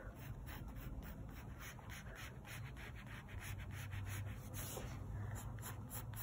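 Pencil scratching on paper in quick, short, repeated strokes, faint.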